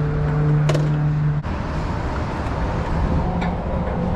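A small scooter engine idles with a steady hum, then cuts off abruptly about a second and a half in, switched off for refuelling; a single click comes shortly before. Near the end, another engine starts up and slowly rises in pitch.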